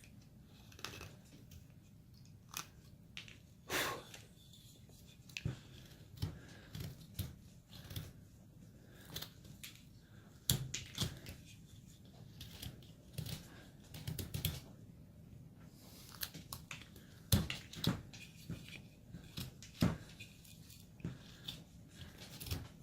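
Carving knife slicing chips from basswood: a run of irregular crisp cuts and scrapes, some sharper and louder than others.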